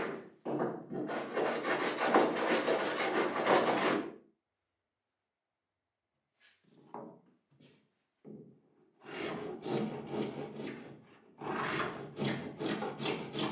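Hand rasp scraping along the edge of a wooden boat coaming, trimming its bevel. It runs continuously for about four seconds and stops for a couple of seconds with a few faint knocks. It then starts again as separate, quick strokes about three a second.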